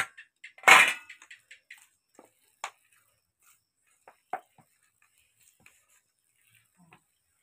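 Hand mixing a thick palm-pulp batter in a stainless steel bowl, with a short loud clatter of steel bowls about a second in and a few sharp clicks after.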